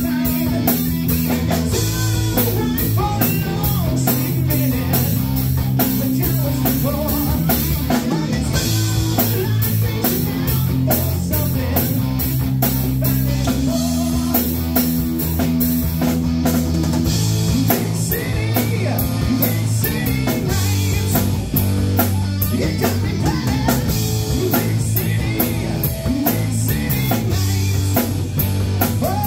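Live rock band playing: distorted electric guitar and electric bass through amplifiers over a drum kit with steady cymbal and snare hits, the guitar bending notes in the second half.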